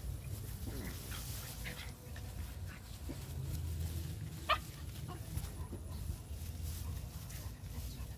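A dog gives one short, sharp yelp about halfway through, after a few faint yips, over a low steady rumble.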